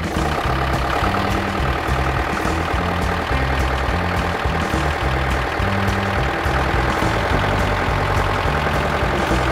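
Farm tractor engine running steadily as the tractor drives with a front-loader bucket full of firewood. The sound starts and cuts off abruptly, with a bass line from background music running underneath.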